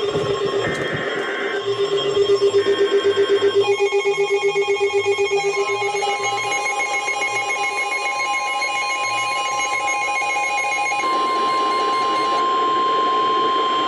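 Overlapping emergency alert signals from several radio receivers: the last two of three short bursts of SAME digital header tones, a rapidly pulsing alarm tone, then steady alert tones that include NOAA Weather Radio's single-pitch warning alarm tone. Together they announce a new tornado warning.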